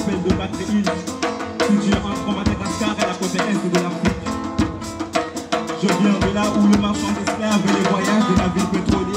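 Music with a drum kit keeping a steady beat, sharp drum strokes over sustained low notes and held chords.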